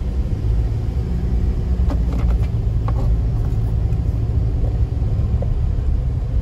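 Car travelling with its windows open, heard from inside on a phone's built-in microphone: a steady low rumble of engine, road and wind noise, with a few faint clicks about two to three seconds in.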